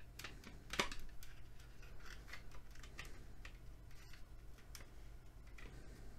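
Plastic speaker housing being handled and worked apart by hand: irregular small clicks and scrapes, with one sharper click about a second in.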